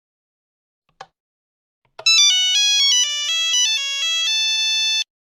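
Mobile phone ringtone: a quick melody of short electronic notes stepping up and down for about three seconds, ending on a held note that cuts off suddenly. Two faint clicks come before it.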